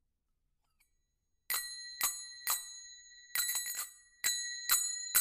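A small bright metal bell struck repeatedly in an uneven rhythm, beginning about a second and a half in, each strike ringing briefly with a clear high tone, as the introduction to a song.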